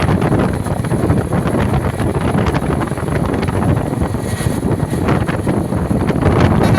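Wind buffeting the microphone over the low rumble of a bus.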